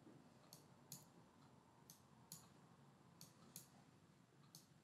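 Faint computer mouse clicks, about eight of them, several coming in pairs, over a near-silent room tone.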